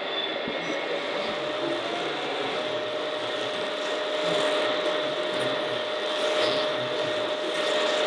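Small electric motors of radio-controlled construction models running with a steady whine: one tone edges up in pitch about a second in and then holds, over a steady mechanical hum.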